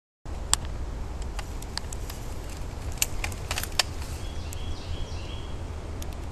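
Outdoor ambience with a low wind rumble on the microphone, scattered sharp clicks and snaps, and a few faint high chirps about midway.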